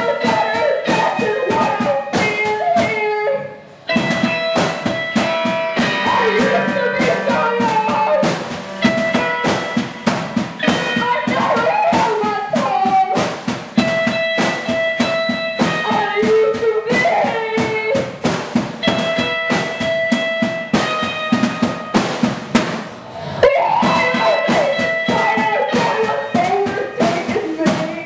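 Live band music: a drum kit played with fast, busy hits under a woman's singing, with held notes from another instrument. The playing drops out for a moment twice.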